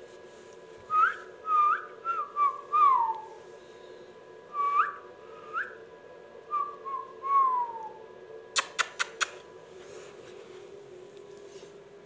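A string of short whistled notes, some sweeping up sharply and some sliding down, in loose groups over several seconds. Near the end come four quick, sharp clicks.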